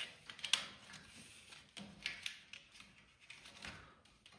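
Scattered light clicks and scrapes, about six of them, the loudest about half a second in, as wiring is handled and fed through the side of the frame.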